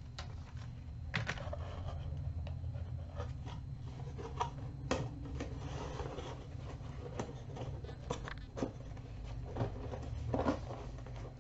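Scattered small clicks, taps and light scratchy rubbing from handling an eyeshadow palette and swiping colour onto skin with a fingertip, over a low steady hum.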